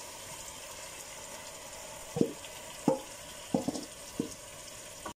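Hot oil and spices sizzling steadily in a pot on a high flame as marinated fish is scraped into it. Five or so short knocks between about two and four and a half seconds in come from the wooden spoon and steel bowl against the pot.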